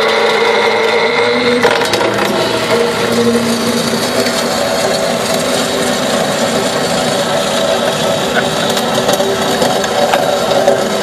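CNC cold saw's circular blade cutting through a hard drive's metal casing: a loud, steady ringing whine over a hissing grind, which changes in tone a little under two seconds in.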